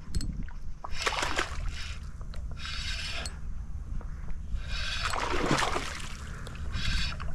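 Fishing reel being cranked as a hooked redfish is brought in: rasping bursts of noise about every two seconds over a steady low rumble.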